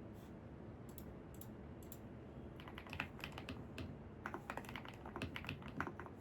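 Computer keyboard typing: two quick runs of keystrokes starting about two and a half seconds in, with a short pause between them, over a steady low background hum.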